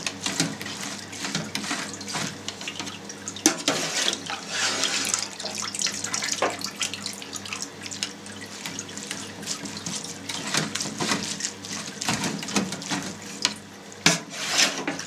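Wet cheese curds being scooped out of whey with a wooden slotted spoon and dropped into a plastic cheese mould, with whey splashing and dripping back into a stainless steel tray. Scattered light knocks from the spoon run through the splashing.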